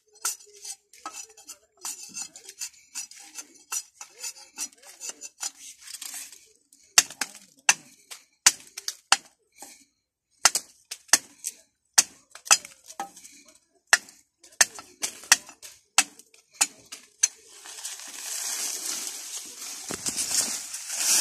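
A steel chopping knife hacking and shaving the end of a wooden stake to a point: a run of sharp, irregular knocks, several a second at times, with short pauses. Near the end the knocks stop and a steady rustle of leaves and brush takes over.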